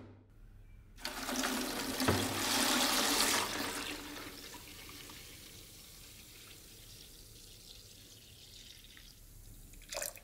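Rust remover poured from a bottle into a cut-down plastic bottle over a rusty axe head: it starts about a second in and splashes loudly at first, then settles into a quieter, steady pour. A short, louder sound comes near the end.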